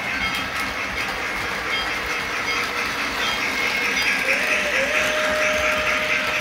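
Three-rail model freight train running along the track with a steady rumble. About four seconds in, a model locomotive whistle blows, dipping briefly and then held steady for about two seconds.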